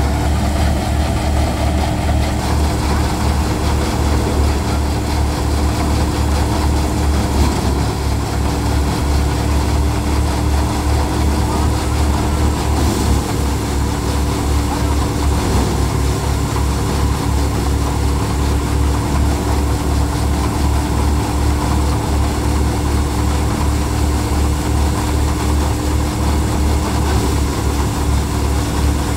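A tractor engine driving a five-fan paddy thresher, running steadily with a constant low drone and a steady hum over it.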